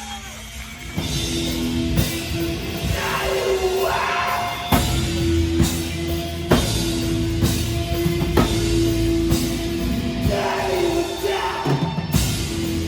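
A live rock band playing loud, heavy rock with drum kit, bass and guitar, and a singer's voice rising and falling over it. The band kicks in about a second in.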